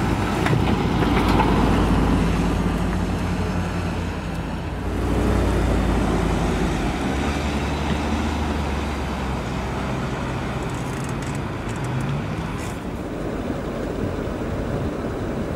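Seat Ateca SUV driving slowly past, its engine giving a steady low hum over tyre noise. The sound shifts abruptly about five seconds in.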